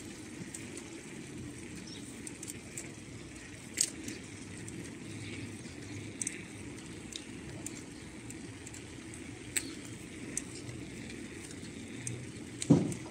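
Steady rumble of a bike rolling over rough, patched tarmac, with a few sharp rattling clicks and a loud knock near the end as it jolts over the broken surface.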